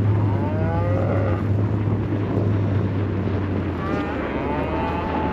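Cattle mooing twice: a short call near the start and a longer, drawn-out moo about four seconds in. Under the calls runs the steady low hum of an idling engine, which drops a step near the second moo.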